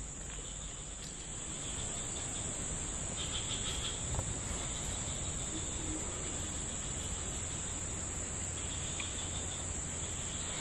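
A steady, high-pitched drone from a chorus of forest insects, unbroken throughout.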